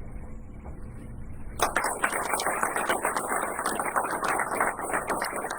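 Audience applauding, bursting in suddenly about a second and a half in over a low room hum and carrying on steadily.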